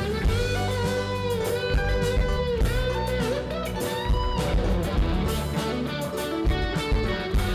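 Live rock band playing an instrumental break: an electric guitar lead with bending, sliding notes over bass and drums.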